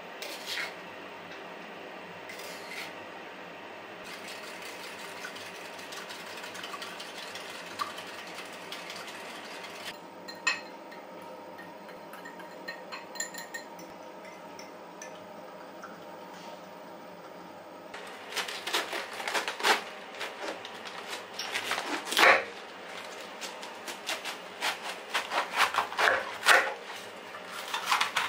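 Small clinks of utensils against a glass measuring cup as a sauce is mixed. In the last third, a kitchen knife cuts through a head of cabbage onto a wooden cutting board: quick crisp crunching cuts, with a few louder chops.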